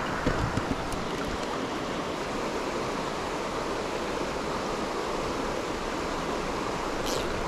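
Shallow stream water running steadily over rocks, with a few brief splashes about half a second in as a hand dips into the water.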